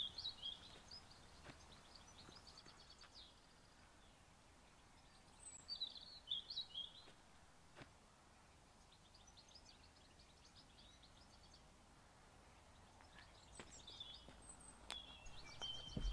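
Small songbirds singing faintly outdoors: short high chirps and quick trilled phrases in several separate bursts, with quiet gaps of open-air hiss between them.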